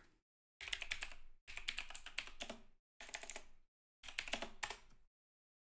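Typing on a mechanical computer keyboard: four quick runs of key clicks with dead gaps between them.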